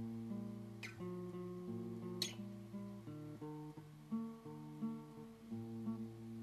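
Soundtrack music on guitar, held chords ringing and changing note every half second or so. Two short sharp clicks, about one and two seconds in.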